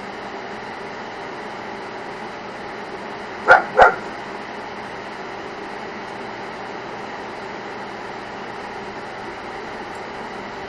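A dog, a German shepherd, barks twice in quick succession about three and a half seconds in, over a steady background hum.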